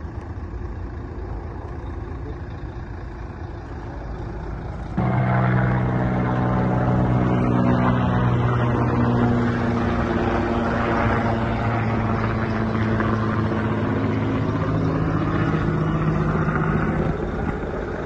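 Diesel engine of a police water cannon truck running, a steady low rumble that gets suddenly louder about five seconds in.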